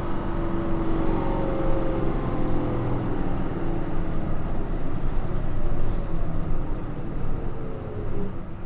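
Nissan Diesel JP city bus under way, heard from inside: diesel engine and drivetrain running at speed, with a whine that slowly falls in pitch as the revs come down.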